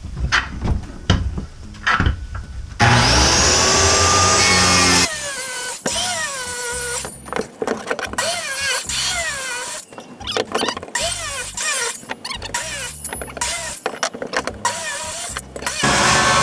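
Corded circular saw plunge-cutting through a plywood subfloor to open a hole for the shower drain: after some knocks it runs loud for about two seconds, its pitch sagging under load, and it runs again near the end. In between, background music plays over short knocks and clatter.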